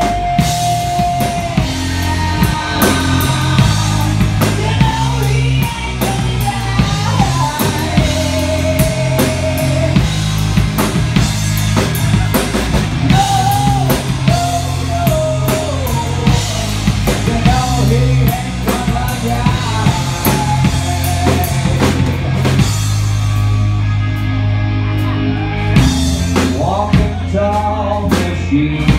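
Live rock band playing an instrumental section: drum kit, bass and electric guitars, with a wavering pitched line riding above the band.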